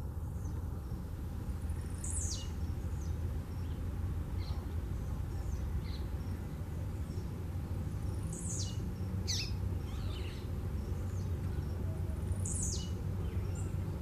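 Blue-black grassquit (tiziu) singing its short, buzzy song, a high note that slides quickly downward. It sings four times: once about two seconds in, twice close together past the middle, and once near the end. A steady low rumble runs underneath, with a few faint chirps.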